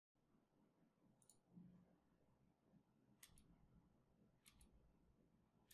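Near silence with a few faint computer clicks from a mouse button or keyboard: one about a second in, two quick pairs around three and four and a half seconds in, and one more at the end.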